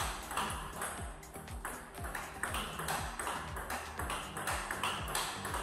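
Table tennis rally: the plastic ball ticks off the paddles and bounces on the table in quick, sharp clicks. Background music with a steady beat about twice a second plays under it.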